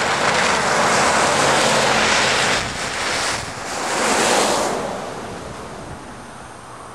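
Vehicle tyres hissing through wet slush on the highway as traffic goes by. The hiss swells twice, then fades away.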